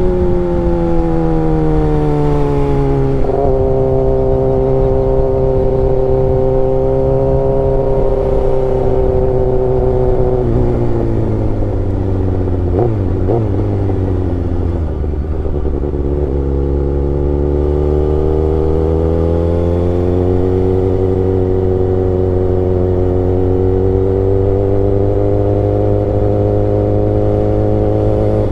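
Kawasaki ZX-6R inline-four engine under way on the road. Its pitch settles into a steady cruise, then drops off for several seconds in the middle with a few short clicks. It climbs again as the bike accelerates and holds steady.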